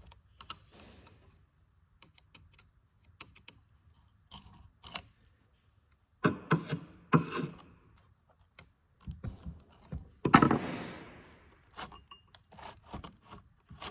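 Metal clinks, knocks and scrapes of a chainsaw and a hand tool being worked at the chain tensioner, with gaps between; a louder rasping scrape comes about ten seconds in.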